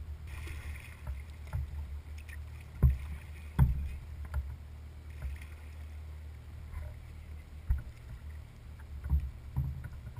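Kayak paddle strokes splashing in calm water, with sharp knocks of the paddle against the kayak, the two loudest a little under three seconds in and at about three and a half seconds, over a steady low rumble.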